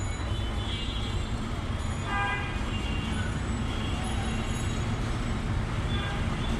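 Steady low rumble of road traffic, with a faint short pitched sound about two seconds in.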